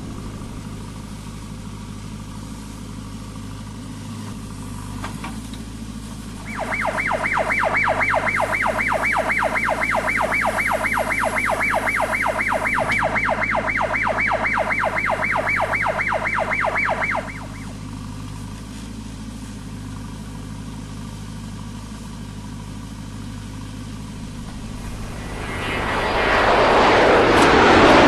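JCB 3DX backhoe loader's diesel engine running steadily. For about ten seconds in the middle, an electronic warning beeper sounds in rapid, even pulses. Near the end the engine labours louder as the loaded bucket is swung up over the trolley.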